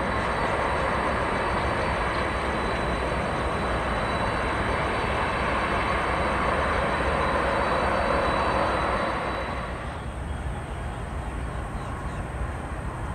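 Jet airliner engine noise, steady and loud with a thin high whine over it, easing off about ten seconds in.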